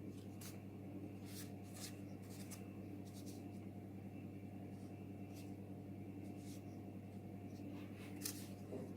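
Faint light scrapes and clicks of small model-car parts being handled and fitted, over a steady low electrical hum.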